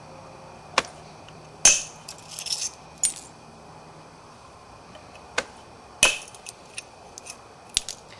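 Percussion flaking of a Florida coral point: a copper billet strikes the stone's edge in a series of sharp clicks and taps, the loudest about a second and a half in and again about six seconds in, with a short crackle after the first.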